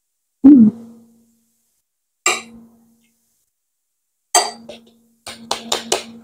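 Metal spoon clinking against a ceramic bowl in separate strikes with a short ring, the first about half a second in and the loudest. Near the end comes a quick run of about five clicks and knocks as a plastic food container is handled.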